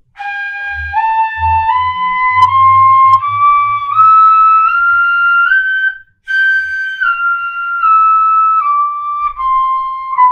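Pífano, a Brazilian cane fife in C, playing a G scale with the flat seventh one note at a time, up about an octave and each note tongued with "tu". About six seconds in there is a brief break for breath, and then the scale comes back down.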